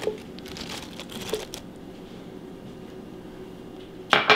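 Halved cherry tomatoes tipped from a glass bowl onto baby spinach leaves: a few light taps and rustles in the first second and a half, then a low steady room hum, with one sharper clack near the end.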